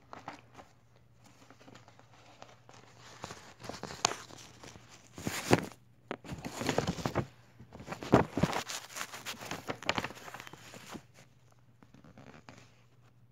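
A rolled paper poster being unrolled and handled by hand: irregular bursts of paper rustling and crinkling, loudest from about five to ten seconds in, with quieter handling before and after.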